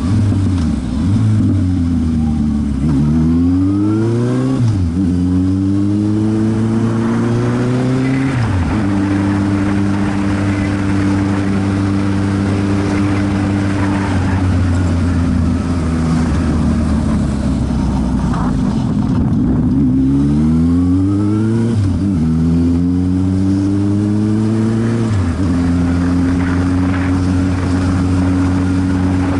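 A road vehicle's engine accelerating through the gears: the revs climb and then drop at upshifts about 4½ and 8½ seconds in, and hold steady while cruising. After slowing around 18 seconds in, it pulls again, with upshifts at about 22 and 25 seconds, then settles to a steady hum.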